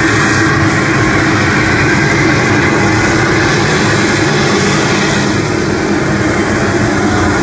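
Pulling vehicle's engine running at full throttle during a pull: a loud, steady, unbroken roar.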